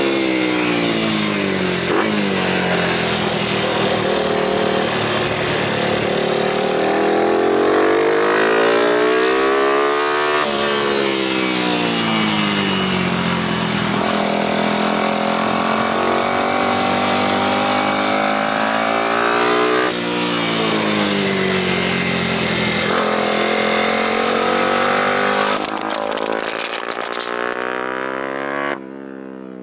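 Sport motorcycle engine heard close up through a helmet camera at speed, its pitch rising and falling again and again as it revs through the gears, over heavy wind rush. Near the end comes a brief scraping clatter as the camera falls onto the ground, then the sound drops suddenly and the engine fades away with falling pitch.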